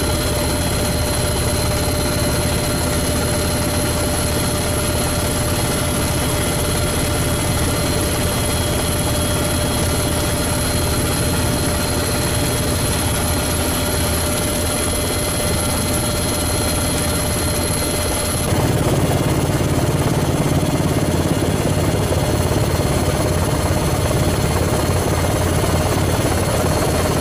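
Helicopter running steadily, heard from aboard: continuous rotor and turbine noise with a steady high whine. About eighteen seconds in the sound shifts, the low rotor noise growing louder and the high whine fainter.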